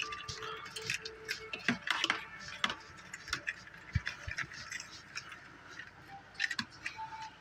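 Fork beating eggs in a bowl, with irregular clinks and taps of the fork against the bowl.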